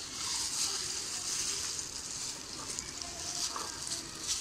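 A gloved hand kneading damp, crumbly white cement in a plastic tub as water is worked in towards a dough: a steady gritty, rustling hiss that swells and fades unevenly.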